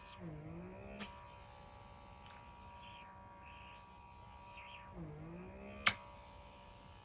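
Small battery-powered blackhead (pore) vacuum running with a faint, steady hum as its suction nozzle is worked over the face. Two sharp clicks, one about a second in and one near the end.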